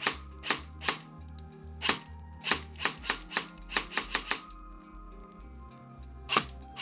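Freshly reassembled airsoft AEG gearbox from a CYMA-made AKS-74U, run bare on a 9.6 V battery and cycling: sharp mechanical clacks as the piston slams forward, fired singly and in a quick run of four about four seconds in. Background music with a steady beat plays underneath.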